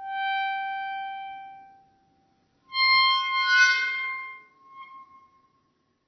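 Metal door or iron gate hinge squeaking twice: first a steady squeak lasting about two seconds, then, after a short gap, a louder, higher squeak that wavers and tails off.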